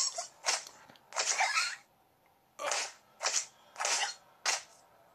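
A cartoon kitten sobbing through a gag: a run of about seven breathy sniffs and gasps, one longer wavering sob about a second in.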